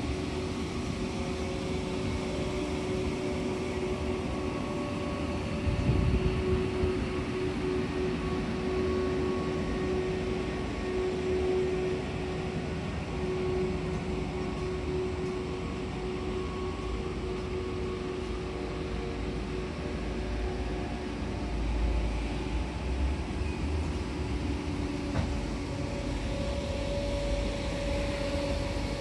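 Frecciarossa 1000 (ETR400) high-speed electric train close by on the track, its equipment giving a steady hum of several held tones over a low rumble. The rumble swells briefly about six seconds in and again from about twenty-two seconds in.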